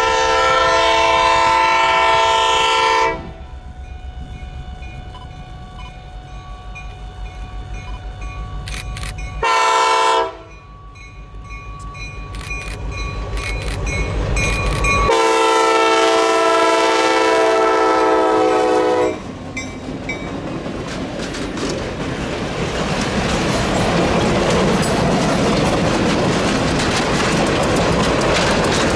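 Restored Nathan six-chime steam whistle on US Sugar 148 blowing a long blast, a short one and another long one, each a chord of several notes sounding together. In the last third the train passes, the locomotive, coaches and wheels rumbling louder with a clickety-clack over the rail joints.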